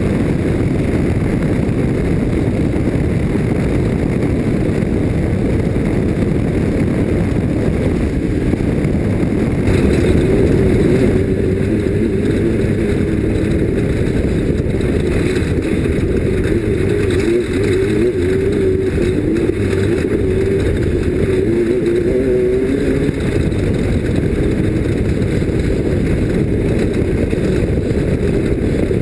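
Off-road race vehicle's engine running hard over a constant rush of noise, its pitch wavering up and down with the throttle from about ten seconds in.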